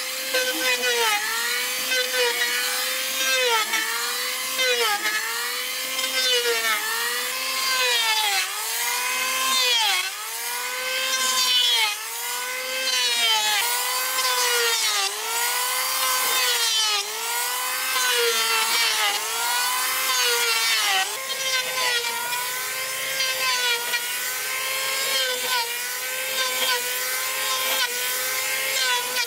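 Hand saw cutting through wood in steady back-and-forth strokes, about one a second, the blade singing with a pitch that rises and falls on each stroke.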